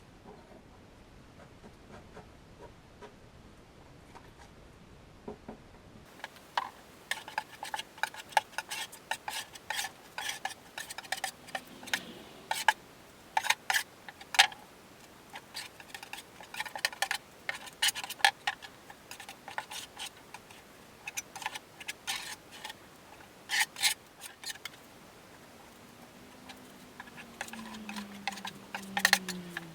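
Short, irregular taps and clicks in quick clusters from hand work on a fibreglass boat console, starting about six seconds in.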